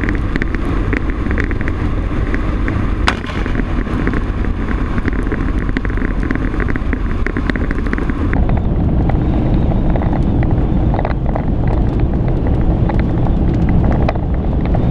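Truck driving on a wet highway in a rainstorm: steady road and wind noise with many small ticks of raindrops. About eight seconds in the sound turns duller, heard from inside the cab.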